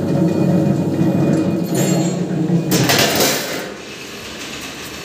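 SS-304 stainless steel ribbon blender running empty, its motor and ribbon agitator giving a loud steady hum and rumble. About three seconds in there is a short rushing clatter, after which the sound drops to a weaker steady level.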